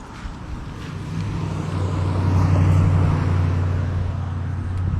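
A motor vehicle passing close by, its steady low engine hum and road noise building from about a second in and loudest near the middle.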